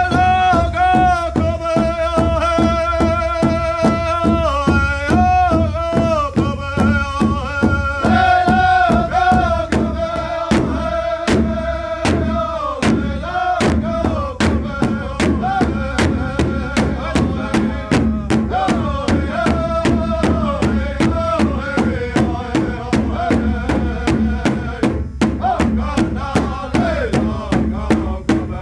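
A Native American drum group singing in unison over a large shared powwow drum, which several drummers strike together in a steady, even beat. The singing is high-pitched and strongest in the first half, then carries on lower and softer.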